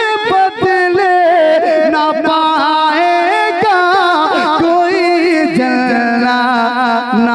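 Solo male voice singing a naat, drawing out a long melismatic line with wavering pitch ornaments and no break.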